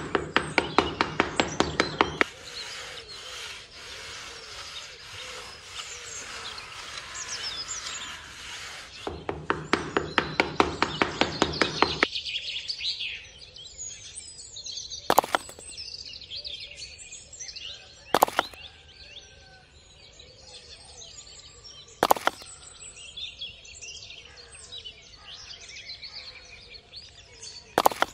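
Birds chirping throughout, over two runs of quick, even strokes, about five a second: one at the start and one around ten seconds in. Four single sharp knocks follow, spaced a few seconds apart.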